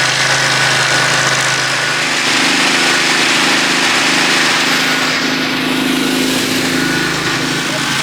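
Small engine running steadily, its pitch shifting for a few seconds from about two seconds in.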